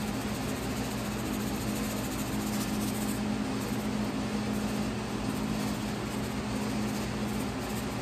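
Steady mechanical hum of a running motor, an even low drone that holds unchanged.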